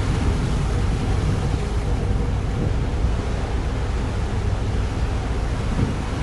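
Wind buffeting the microphone over the rush of a rough sea, heard from aboard a vessel, with a low steady rumble underneath.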